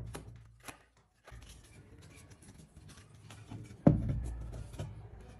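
Wooden turntable parts being handled, with small clicks and light knocks, then one loud wooden knock about four seconds in.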